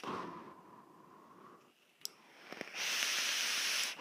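A drag on a vape mod. A faint airy draw fades out over the first second and a single click comes about two seconds in. Near the end, a loud, steady breathy hiss of about a second is the vapor being blown out.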